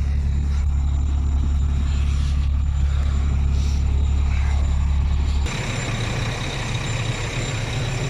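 Truck's diesel engine idling with a steady low drone. About five and a half seconds in the sound changes abruptly: the deep drone drops away and a thinner engine sound with more hiss and a faint high whine takes over.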